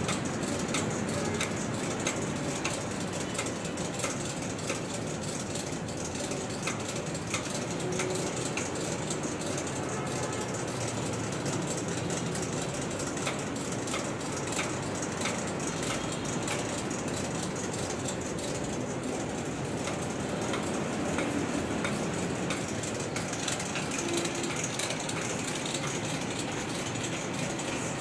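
Steady mechanical running noise of machinery, with many light clicks and ticks scattered through it.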